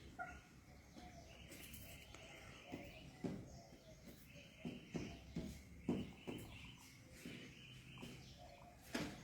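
A hen making soft, short clucks, several in a row about a second apart, with faint bird chirping behind them.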